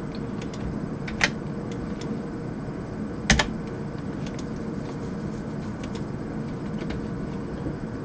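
Computer keyboard and mouse: scattered key taps and clicks, two louder clicks about a second in and about three seconds in, over a steady background hum.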